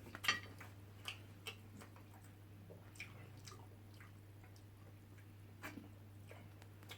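Someone eating fufu with ogbono soup close to the microphone: scattered soft, wet mouth smacks and clicks while chewing, over a faint steady low hum.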